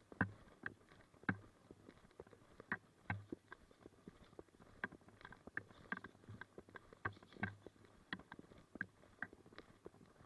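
Footsteps of a person walking, a soft thud with a crackle at each step, coming roughly every second, with smaller knocks and rustles between.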